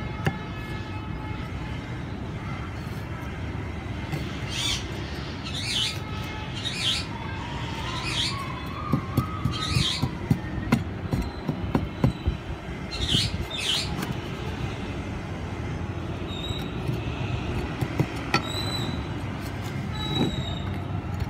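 Garden trowel scooping dry soil from a plastic tub and tipping it into a split-bamboo planter: a series of short scrapes and swishes, about one a second, from about four seconds in until about fourteen seconds, over a steady low rumble.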